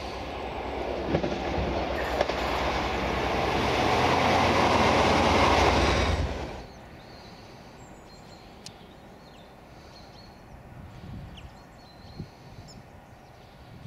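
Class 57 diesel locomotive's EMD two-stroke V12 engine running as it approaches and passes close by, growing steadily louder, then cutting off abruptly about six and a half seconds in. After that the engine is a much quieter, steady rumble.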